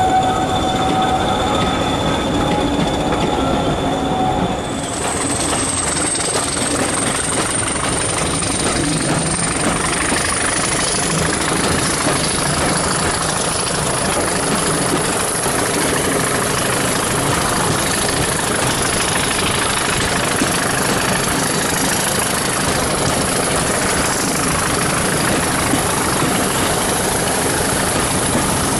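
Passenger coaches rolling by with a steady squeal from the wheels. About five seconds in this gives way to the continuous rumble and rush of a train in motion, heard from an open window of a moving coach, with a thin high whine over it that rises slightly at first.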